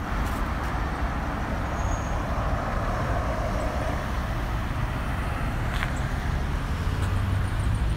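Steady background rumble of road traffic, with no distinct single event.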